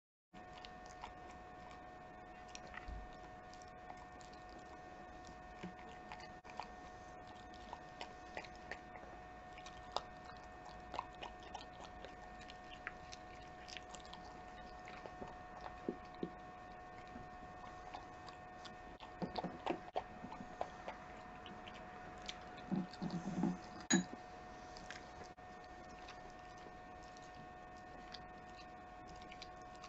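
A Keeshond dog chewing and biting food, with wet smacks and crunches coming as scattered clicks. It gets louder and busier about two-thirds of the way through.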